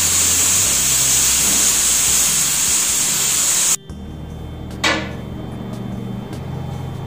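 Prestige aluminium pressure cooker whistling, a loud steady hiss of steam venting past the weight valve as the cooker comes up to pressure. It stops abruptly about four seconds in, followed about a second later by a single knock.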